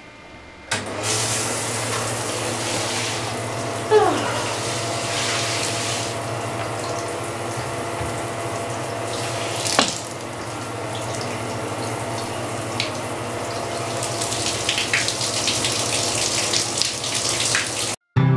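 A handheld shower sprays water onto a West Highland White Terrier and the shower tray; the spray comes on suddenly just under a second in and cuts off shortly before the end. A short falling squeal sounds about four seconds in and a sharp knock near ten seconds.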